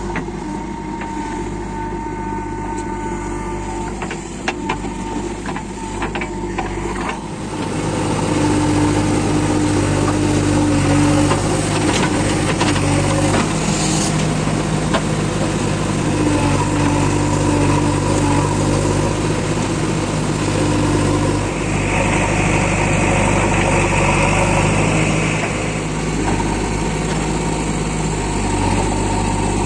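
Diesel engine of a JCB 3DX backhoe loader working as it loads mud into a tractor trolley, with a tractor's diesel engine also running; the engine gets louder about seven seconds in. A cluster of knocks comes just before that, and a hiss runs for a few seconds near the end.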